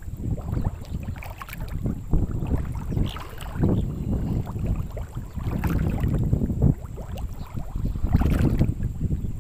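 Wind buffeting the microphone in uneven gusts, with water lapping and splashing close by.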